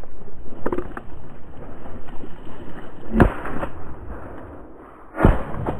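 Two shotgun shots about two seconds apart, the first about three seconds in, over a steady rushing background noise.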